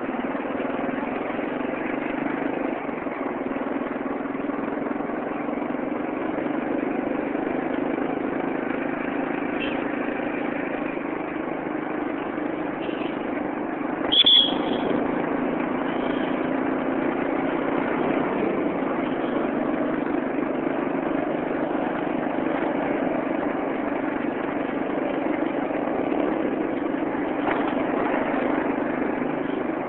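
Vehicle engine running steadily with road noise, heard from on board a moving vehicle. About halfway through, a short high-pitched sound is the loudest moment.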